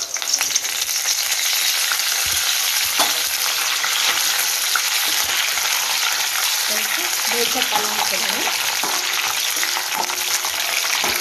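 Curry leaves sizzling and spluttering in hot oil in a steel kadai. The sizzle starts suddenly as the leaves hit the oil and keeps up steadily while a steel ladle stirs them.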